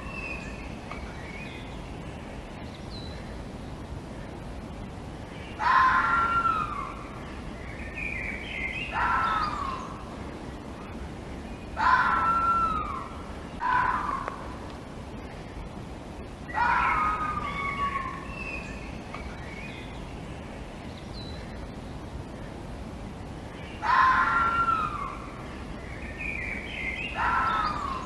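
Red fox giving short, high calls that fall in pitch, singly or in pairs every few seconds, over a steady background hiss.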